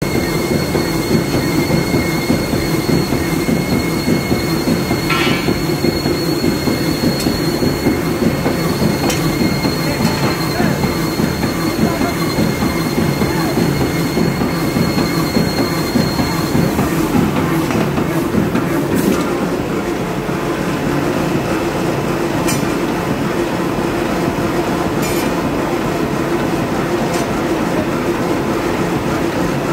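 Power forging hammer and forge-shop machinery running with a loud, steady, rhythmic clatter. A thin high whine sounds over it and stops about halfway through, and a few sharp knocks stand out.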